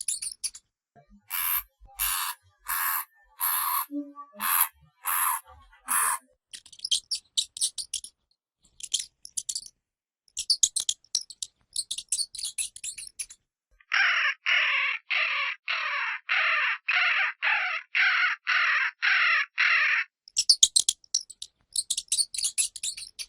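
Hamster noises: rapid high clicking chatter, then a run of about eight short scratchy bursts. Later comes a steady series of about fourteen squeaky calls, roughly two a second, and more clicking chatter near the end.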